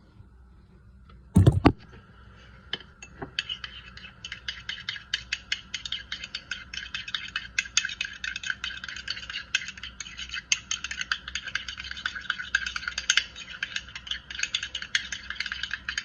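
A spoon stirring a thick sauce of ketchup, mustard and pepper, rapid scraping and clicking against the dish that starts a few seconds in and keeps going. A single knock about one and a half seconds in.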